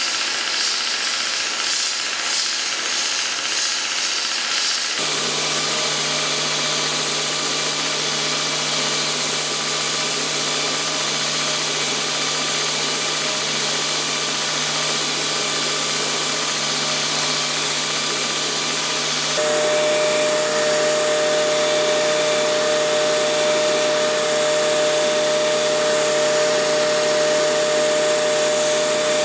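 Belt grinder running while a metal sword pommel is ground against its abrasive belt: a steady loud hiss. The machine's hum changes abruptly about five seconds in, and after about nineteen seconds a steady whine joins it.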